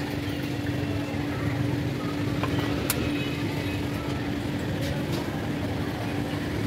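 Steady rumble of road traffic with a constant hum running through it, and a few faint sharp clicks.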